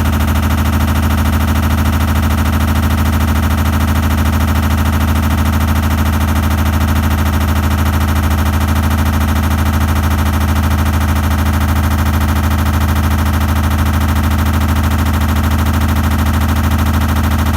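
Samsung washing machine banging fast and continuously over a low hum, the rapid knocking holding steady throughout. The banging persists after the recall repair and a drum replacement.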